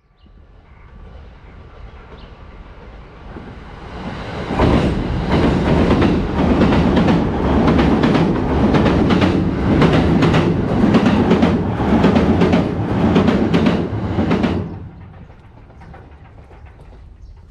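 An E209-series electric commuter train crossing a riveted steel girder bridge overhead: the rumble builds over the first few seconds, then from about four and a half seconds in it is loud with rapid, rhythmic clickety-clack of the wheels over the rail joints, and it drops away abruptly about fourteen and a half seconds in.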